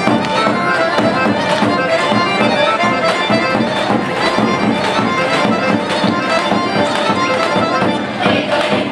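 Lively Bulgarian folk dance tune led by accordion, with a steady driving beat.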